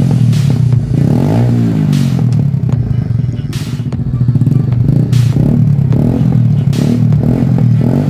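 Rusi 100 motorcycle engine running through a DBS open exhaust pipe with its silencer removed, a deep note that is given throttle, rising and falling in pitch about a second in. Short sharp cracks sound from the pipe roughly every second and a half.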